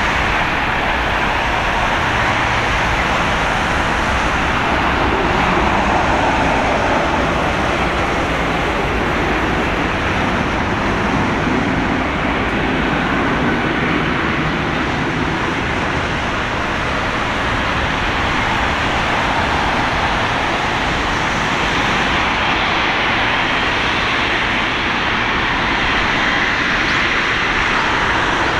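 Boeing 777-200LR's GE90 jet engines running at low power as the airliner slows and taxis off the runway after landing: a steady rushing noise with no clear pitch.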